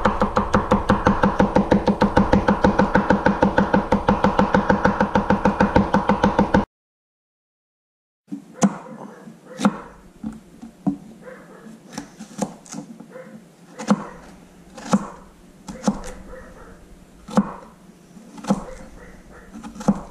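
Kitchen knife chopping green onion on a cutting board in a fast, even rhythm of about seven strokes a second. The sound cuts off about six and a half seconds in. After a short silence come slower single chops through celery, roughly one a second.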